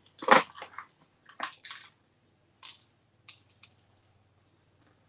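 Loose sequins shaken from a plastic pouch and scattered over paper. A loud rustling rattle comes just after the start, then a few shorter, fainter bursts.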